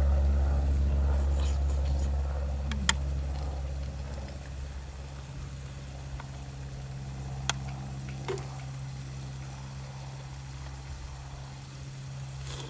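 Low rumble of an aircraft passing overhead, fading away over the first few seconds, over a steady low hum. A few sharp clinks are heard, about three seconds in and twice between seven and nine seconds in.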